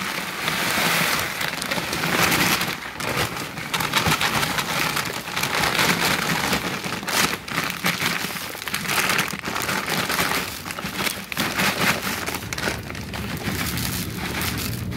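Granular fertilizer being poured from its bag into a basin: a dense rain-like pattering of granules hitting the container, surging and easing as the pour goes on.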